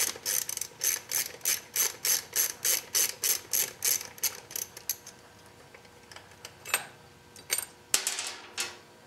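Hand ratchet clicking steadily, about three clicks a second, as a bolt holding the brake hose guide is unscrewed. The clicking stops about four and a half seconds in, followed by a few light clicks and handling noise near the end.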